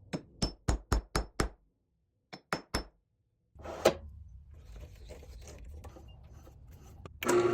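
A cherry carver's mallet knocks sharply nine times: six quick strikes at about four a second, a short pause, then three more. About halfway through, a low steady hum begins with one loud knock, typical of the lathe's motor running.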